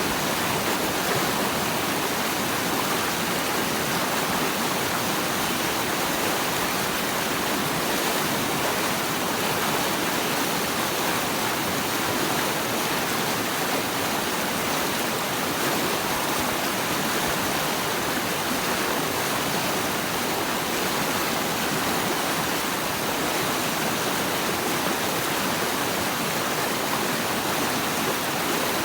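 Steady, even rush of running water, with no splashes or changes standing out.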